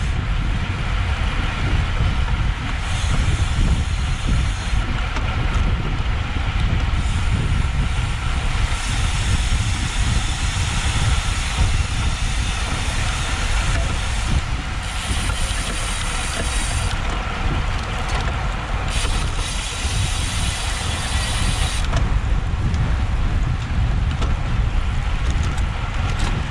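Wind buffeting a GoPro microphone on a moving road bike: a steady low rumble with a hiss over it.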